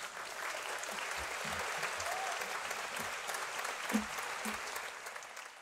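Congregation applauding, many hands clapping together, fading out near the end.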